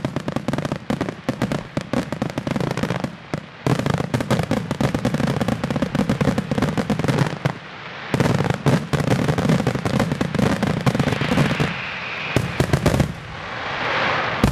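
Aerial fireworks display: a dense, near-continuous crackle of many sharp pops and bangs from bursting shells and crackling stars. There is a brief lull about three seconds in, and a hiss swells near the end.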